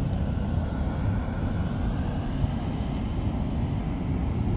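Steady low roar of Mount Bromo's active crater as a steam plume vents from it.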